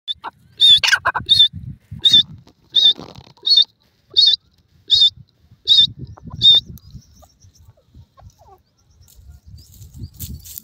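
Grey francolin calling: a series of about ten short, high, wavering notes, roughly one every 0.7 seconds, that stop about six and a half seconds in.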